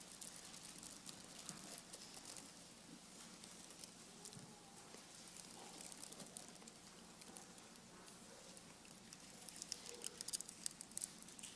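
Faint scattered clicks and crinkling as the communion bread is passed and broken among a silent congregation, with a cluster of sharper clicks near the end. A faint steady hum lies underneath.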